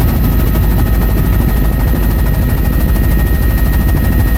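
Helicopter heard on board in flight: a loud, steady rotor and engine drone with a thin steady whine above it.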